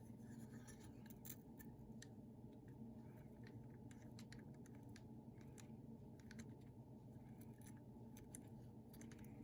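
Near silence: a steady low hum with faint, scattered small clicks and scrapes of a hand tool working at a die-cast metal toy's parts.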